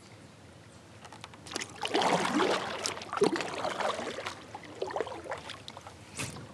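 Water splashing and gurgling around a kayak, with irregular knocks, starting about a second in and loudest for the next couple of seconds before easing off.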